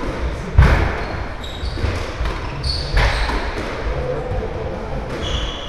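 Squash ball smacking hard against the court, echoing in the hall: one loud hit about half a second in and another about three seconds in. Short high squeaks come in between.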